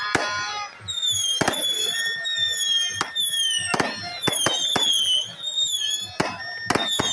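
Fireworks going off: a rapid run of sharp bangs, with high whistles that slide down in pitch between them.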